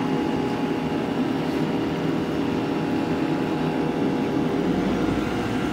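Vitamix E310 blender motor running steadily, spinning water and dish soap in its container on a cleaning run. A sharp click comes at the very end.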